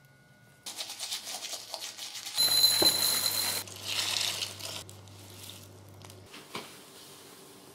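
Milk pouring from a jug into a bowl of chocolate puffed-rice cereal: a loud rushing pour lasting about a second, surrounded by crackling, with a few small clicks of a spoon near the end.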